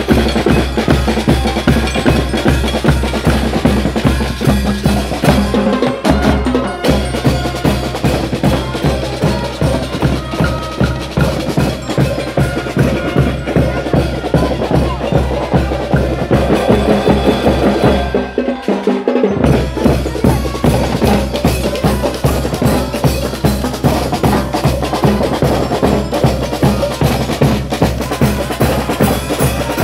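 Marching band percussion playing a steady, fast beat: bass drums, snare drums and clashing hand cymbals, with a bell-like melody over them, typical of the bell lyres of a Venezuelan banda show. The bass drum drops out briefly a little past halfway, then comes back in.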